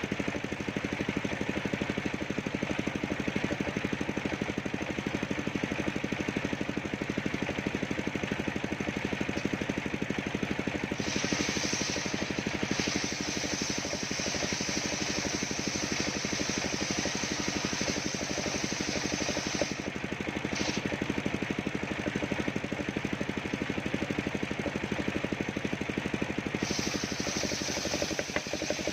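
Homemade engine-driven circular sawmill running steadily while sawing coconut wood. A higher hiss joins the engine about eleven seconds in, again briefly later, and near the end.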